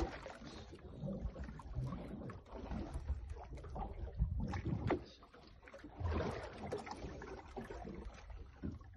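Water and wind noise aboard a small boat at sea, rising and falling unevenly, with scattered sharp clicks and knocks.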